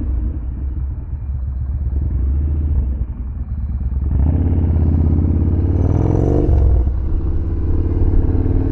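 Yamaha Bolt's air-cooled V-twin engine running at low speed, then accelerating about four seconds in. Its pitch rises for a couple of seconds and then drops back.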